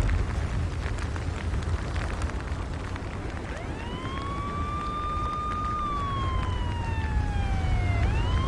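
A siren wails: it starts about three and a half seconds in, rises and holds, slowly falls, then rises again near the end. Under it runs a steady low rumble, with scattered crackling in the first couple of seconds.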